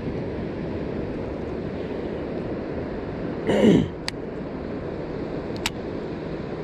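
Steady rushing noise of wind and fast-flowing water. About halfway through comes a short swishing sound that falls in pitch, followed by two sharp clicks.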